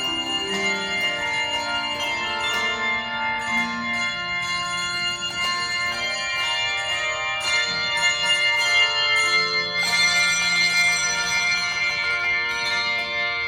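Handbell choir ringing a tune, many bells struck together in chords and left ringing with long, overlapping tones; the fullest, loudest chord comes about ten seconds in.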